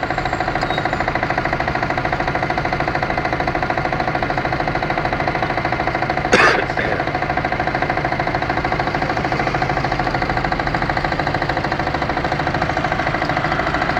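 An engine running steadily at idle, with an even, rapid pulse. A short, louder sound breaks in briefly about six seconds in.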